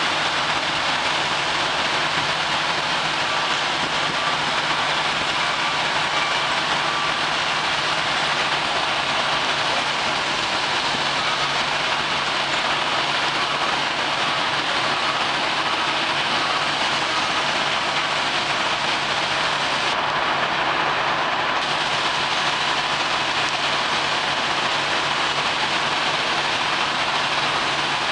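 Steady, even machinery noise with a low diesel engine hum underneath, from a Mack LE garbage truck running its hydraulics to tip up its Labrie split body and dump the load.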